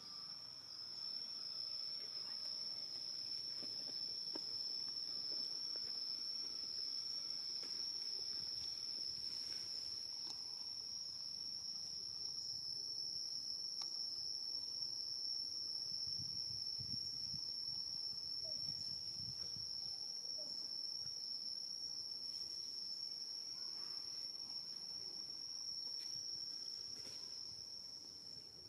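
A steady, high-pitched insect chorus, one unbroken shrill note.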